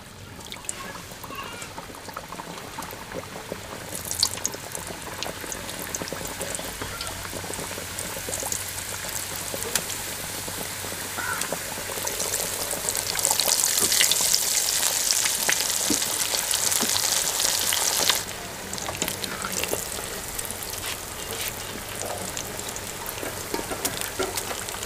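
Chicken samosas deep-frying in hot oil in an aluminium karahi: a steady sizzle full of fine crackles that builds as more samosas go in, is loudest toward the middle, then drops suddenly to a quieter sizzle.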